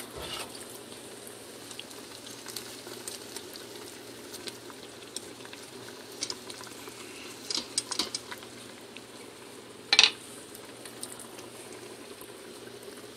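Creamy mushroom sauce simmering and bubbling in the stainless inner pot of a Power Quick Pot electric pressure cooker, hot from the sauté setting. A few light clicks come through, and one sharper knock about ten seconds in.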